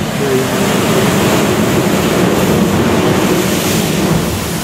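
Sea blowhole erupting: surging seawater forced up through the rock and thrown up as spray, a loud, steady rush of water noise that swells slightly at the start.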